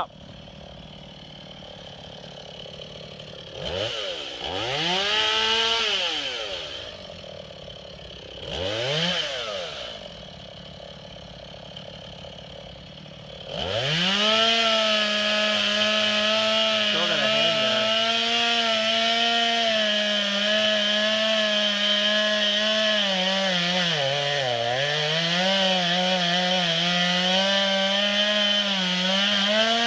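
STIHL MS 180 C two-stroke chainsaw idling, revved briefly twice, then held at full throttle from about halfway through while cutting wood. The pitch dips once partway through that stretch as the saw bogs under load.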